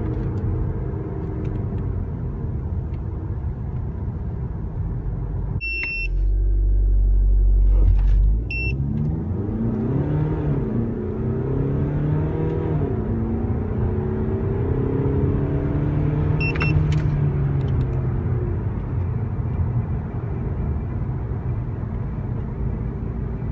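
Inside the cabin of a VW Passat 2.0 TDI four-cylinder turbodiesel with DSG gearbox accelerating hard: the engine note rises in several climbs, each broken off at a gear change. A loud steady low rumble runs for about two seconds before the run. Short electronic beeps from the GPS timer mark the start and, about eight seconds later, the end of the 0-100 km/h run.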